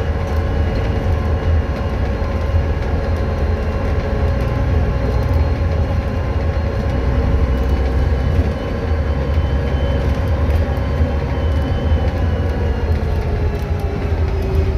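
VDL DB250 double-decker bus running, its electric radiator fan (e-fan) whining steadily like a hoover over a low engine rumble. Near the end one of the tones sinks in pitch.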